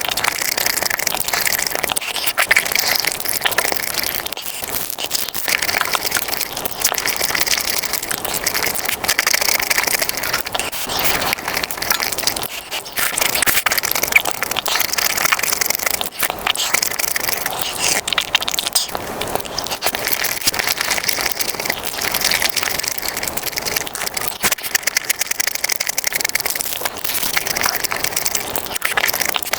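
Close-miked mukbang eating sounds, sped up: dense, continuous crunching and chewing.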